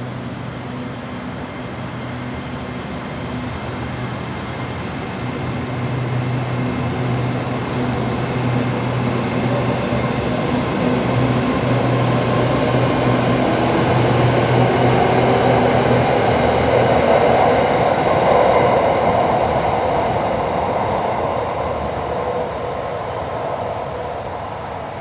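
Hitachi AT-100 electric multiple unit pulling out of a station: a steady low hum while it stands, then its motors and wheels grow louder with a faint rising whine as the cars pass close by, loudest about two-thirds of the way in and fading as the train leaves.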